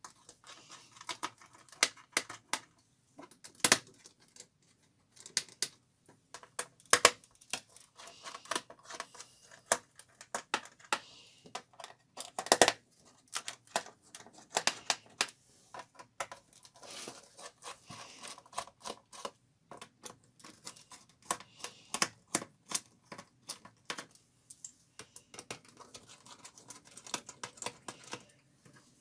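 Irregular plastic clicks, taps and knocks from hands working on the bottom case of a Dell Studio 1535 laptop as it is taken apart, with a few louder knocks among them.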